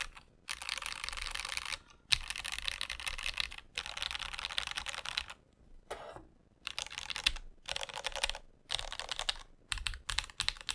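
Fast typing on a Rama U80-A custom mechanical keyboard with lubed Mode Reflex switches, a brass plate and GMK ABS keycaps. Runs of rapid keystrokes about a second and a half long come with short pauses between them, turning to separate, spaced key presses near the end.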